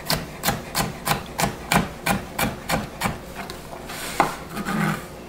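Chef's knife dicing a green bell pepper on a plastic cutting board, even chopping strokes about three a second that stop about three seconds in. A single knock and a brief scraping sound follow near the end.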